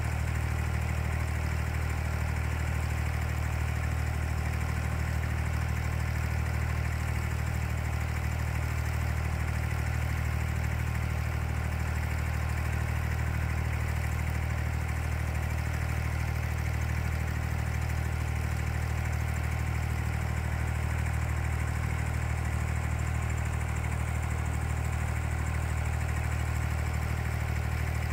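Boat engine running at a steady speed, heard from on board as an even, deep drone that doesn't change.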